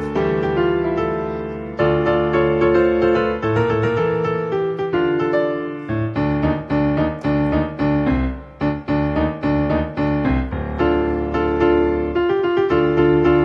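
Background piano music: held notes at first, then a run of shorter, quicker notes through the middle.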